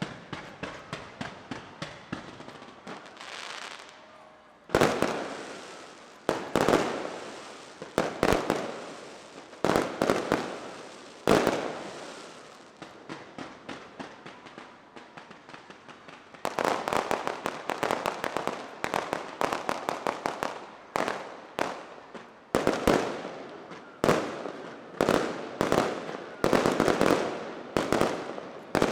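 Aerial fireworks bursting: sharp bangs, some single and some in quick runs, each trailing off in an echo, with a dense volley in the second half.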